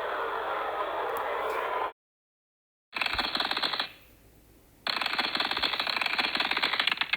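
Archival NASA space-radio audio, band-limited like a radio link. A steady hiss cuts to silence about two seconds in, then comes static with rapid crackling clicks: one short burst, then a longer run of about three seconds.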